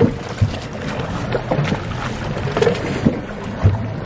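Wind buffeting the microphone and choppy water slapping a small fishing boat, with irregular knocks and splashes throughout.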